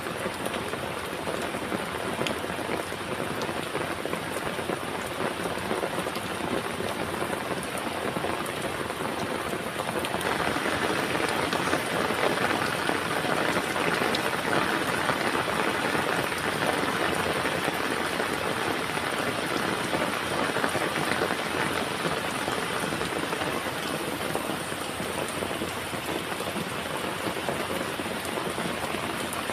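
Heavy rain falling steadily, a dense patter of raindrops on a surface; it grows louder about ten seconds in.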